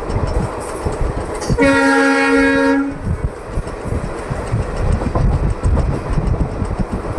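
A WAP-4 electric locomotive's air horn sounds one blast of just over a second, several pitches at once. The rumble and clickety-clack of the moving train run underneath.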